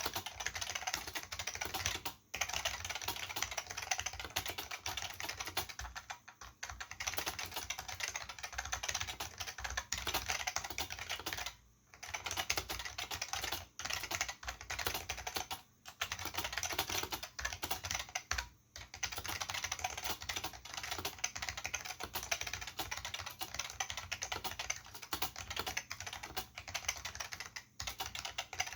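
Fast, continuous typing on a vintage Olivetti M15 keyboard with Futaba MA mechanical switches and PBT keycaps, a dense run of keystrokes broken by a few short pauses.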